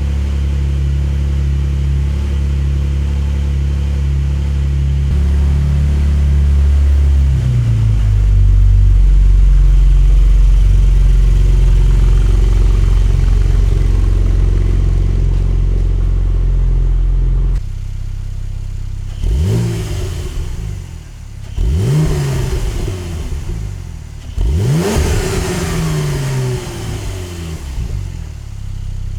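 Porsche 992.1 Targa GTS twin-turbo flat-six through a bespoke titanium valved catback exhaust. For more than half the time it drones steadily and low, dropping in pitch once partway through. It then makes three rising pulls in quick succession, each broken off by a short gap.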